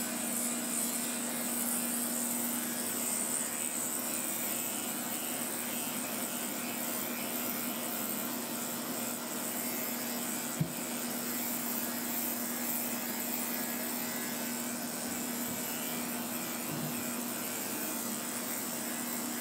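Corded electric dog-grooming clipper running steadily, its blade cutting through the coat on a dog's legs. It gives a constant hum under a bright hiss, with one short click about halfway through.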